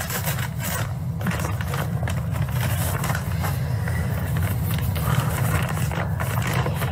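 Domestic cat purring, a steady low rumble, with soft rustling over it.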